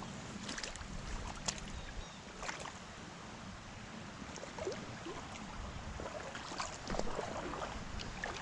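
Shallow stream water running and rippling, with scattered short splashes throughout.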